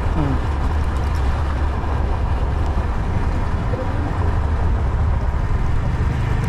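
Yamaha MT-15's 155 cc single-cylinder engine running steadily on the move, with wind and road noise. Its note climbs near the end.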